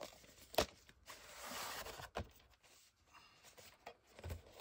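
A plastic VHS cassette being slid out of its cardboard sleeve and handled. There is a sharp click about half a second in, then a scraping slide lasting about a second, then a few more plastic clicks and a soft knock near the end.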